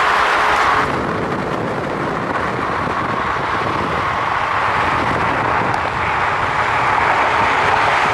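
Cars driving along a road at speed: a steady rush of tyre and wind noise, slightly quieter from about a second in.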